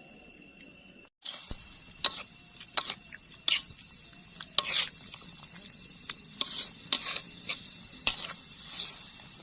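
A metal spoon clinking and scraping in a cooking pot in irregular sharp knocks, as food is stirred and salted, with insects chirring steadily behind. The sound breaks off briefly about a second in.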